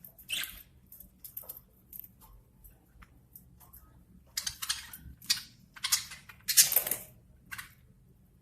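Budgies pecking at and cracking food: irregular small crackles and rustles, busiest and loudest in the second half, with one longer rustle near the end.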